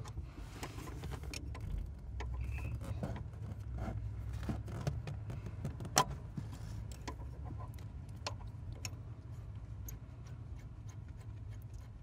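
Scattered small metallic clicks and taps of a combination wrench on the lock nuts of a Porsche 911's throttle pedal linkage arm, loosening them to lengthen the arm, with one sharper click about halfway through, over a steady low hum.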